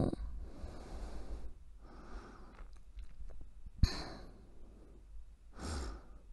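A woman breathing softly and sighing close to the microphone: about four slow breaths a second or two apart, with one brief bump about four seconds in.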